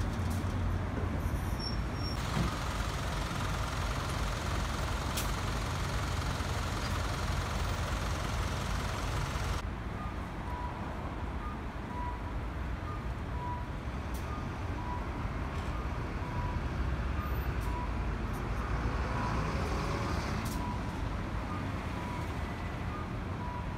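City street traffic with buses and cars idling and creeping in a queue, a steady low engine rumble. From about ten seconds in, a short beep repeats roughly every three-quarters of a second.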